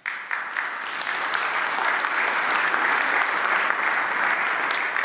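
Audience applauding: many people clapping at an even, steady level.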